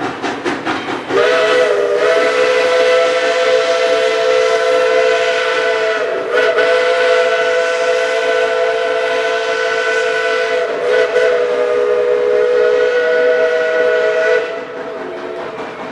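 A steam locomotive's whistle blows one long blast of several notes at once, lasting about thirteen seconds and sagging briefly in pitch twice. Around it the locomotives are chuffing as they work the train up a hill; the chuffing is heard on its own at the start and again after the whistle stops near the end.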